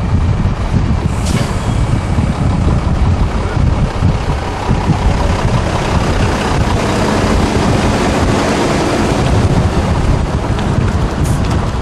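American semi-truck diesel engine running as the tractor-trailer drives past and turns in, with wind buffeting the microphone.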